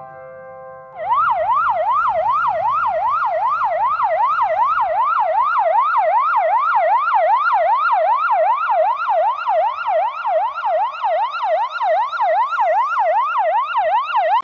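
Ambulance siren in a fast yelp, its pitch rising and falling a little over twice a second, starting about a second in after the last of a held piano chord.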